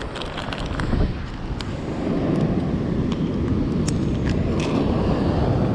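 Strong wind rumbling and buffeting on the microphone, louder from about two seconds in, with a few light crinkles as a plastic bait packet is handled.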